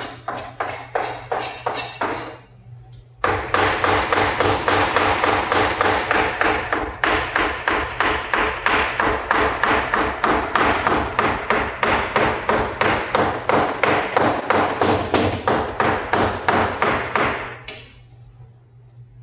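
Chicken being minced into keema with a heavy cleaver on a chopping block: fast, steady chopping strokes, several a second. A short run of chops, a brief pause, then a long unbroken run that stops near the end.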